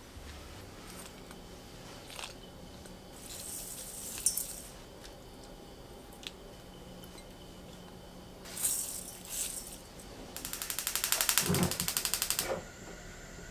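Gas hob's igniter clicking rapidly for about two seconds near the end as the burner is lit, with a brief soft whoosh as the gas catches. Earlier, two short rustles with a light click as garlic and chillies go into a stainless steel mixing bowl.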